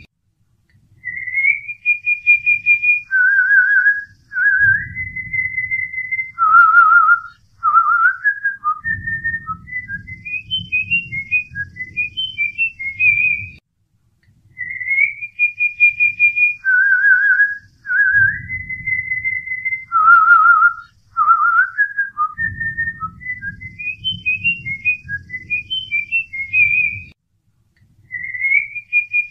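A whistled melody of clear notes, some held with a quick wobble, others short and skipping, playing the same phrase twice over a low accompaniment.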